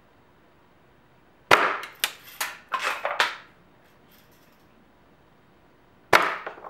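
Daisy Red Ryder lever-cocked spring-piston BB rifle shooting twice: a sharp crack of the shot about one and a half seconds in and another near the end. Between them comes a quick run of four or five metallic clacks.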